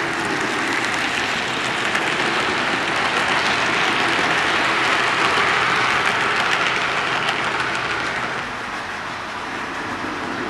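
HO scale model train (a steam locomotive and passenger coach) rolling along the track past the camera. Its steady wheel-and-motor noise swells to a peak midway and drops off about eight seconds in.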